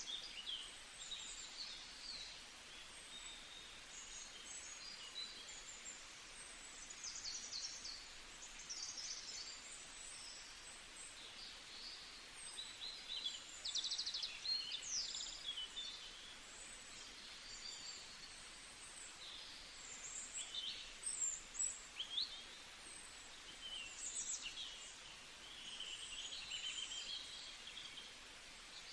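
Many small songbirds chirping and singing at once, overlapping short high calls and trills that come thick and fast, over a steady outdoor hiss.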